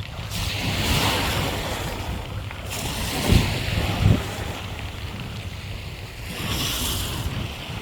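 Sea waves washing onto the shore, with a hissing surge of surf about a second in and another near the end. Two short low thumps in the middle are the loudest moments.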